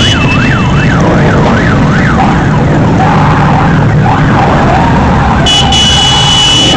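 Motorcycle engines running in a moving group ride, with a siren over them. The siren goes in a fast up-and-down yelp for the first two seconds or so, then in slower rising and falling wails. A high pulsing tone joins near the end.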